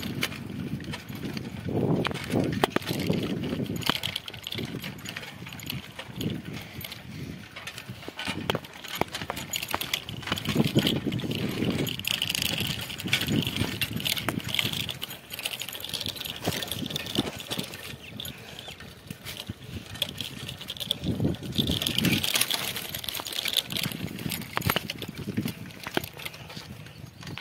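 Bicycle ridden over a bumpy dirt track: tyres rolling on loose ground and the bike rattling with many small knocks, with irregular low rumbling gusts from wind on the microphone.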